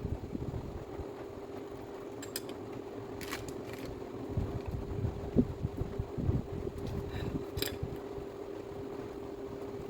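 A small electric motor running with a steady hum, over an uneven low rumble, with a few sharp clicks and knocks.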